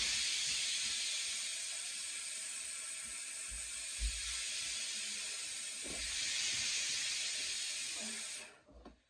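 A steady, even hiss with a few soft low knocks, cutting off abruptly near the end.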